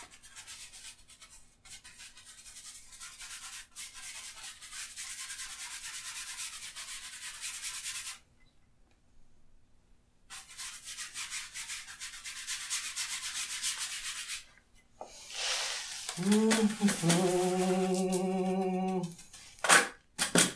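Fan brush scrubbing oil paint onto canvas in quick, rapid strokes, in two long spells with a short pause between. Near the end a voice hums a held note for about three seconds.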